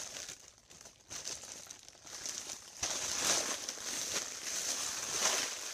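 Crinkling and rustling of a foil (Mylar) helium balloon as it is opened and held to the mouth to breathe in its helium, louder from about three seconds in.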